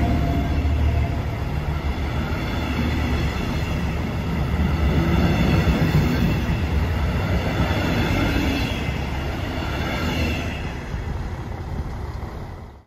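A double-deck regional train hauled by a class 245 diesel locomotive rolls past and pulls away: a low rumble of engine and wheels on the rails, with some high-pitched wheel squeal, growing fainter toward the end.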